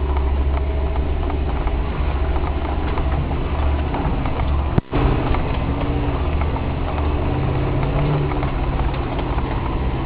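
Land Rover 110's V8 engine running under load off-road, heard from inside the cab as a steady low drone, with the vehicle rattling and clattering over the rough ground. The sound drops out for an instant about five seconds in.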